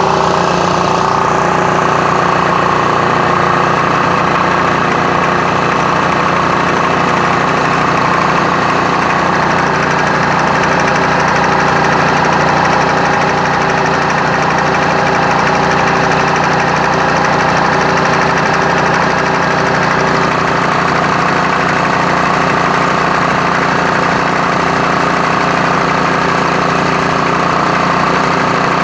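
Bridgeport milling machine's spindle running steadily at about 700 RPM with a fly cutter. It is a bit noisy because its variable-speed drive bushing is worn out.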